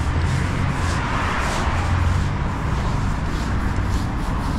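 Running footsteps on paving stones, about three a second, over a steady low rumble of road traffic.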